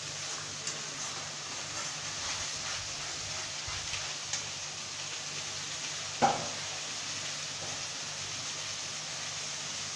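Thick spice masala sizzling in oil in a metal kadai as a spatula stirs and scrapes through it; the masala has been fried until the oil separates. About six seconds in there is a single sharp knock.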